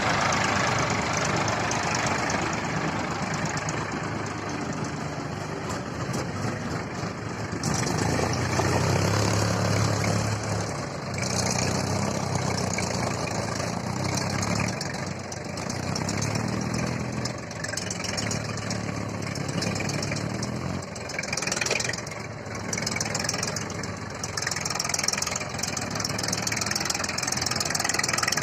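Sonalika DI 750 tractor's diesel engine running steadily, its level rising and falling somewhat as it works.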